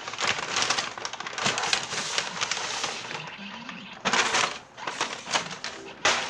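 Paper and cardboard rustling and crinkling in irregular bursts as a shoebox is opened and unpacked, loudest about four seconds in and again near the end.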